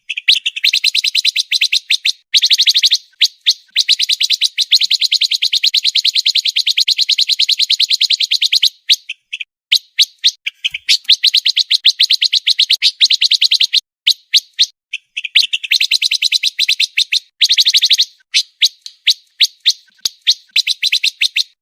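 Pancawarna songbird singing a fast masteran song: rapid, tightly packed high chirps strung into long runs several seconds each, broken by brief pauses.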